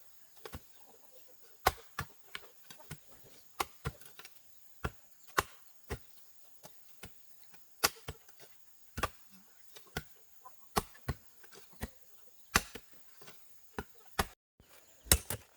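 Repeated sharp chopping strikes on wood, a heavier blow about every one to two seconds with lighter knocks between.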